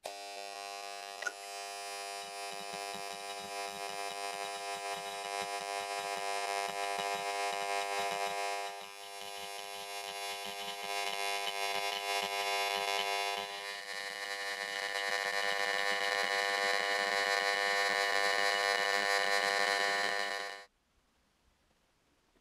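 Electrochemical etching unit buzzing steadily as its electrode pen is worked over the steel cleaver blade, with a faint crackle underneath. It steps louder partway through and cuts off suddenly near the end.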